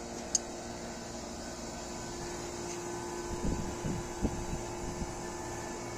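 Air conditioner unit running with a steady hum, with a sharp click near the start and a few low knocks a little past the middle.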